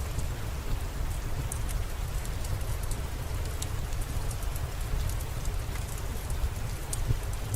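Steady rain falling, with scattered faint sharp ticks over a constant low rumble.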